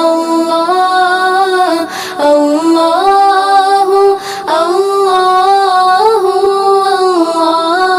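A woman's solo voice singing a naat, holding long ornamented notes that step up and down in pitch, with short breaks between phrases about two and four seconds in.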